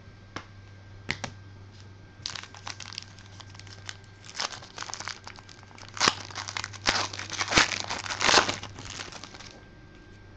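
Trading card pack wrapper torn open and crinkled in the hands: a few light clicks, then several seconds of crinkling and crackling wrapper, loudest in the second half.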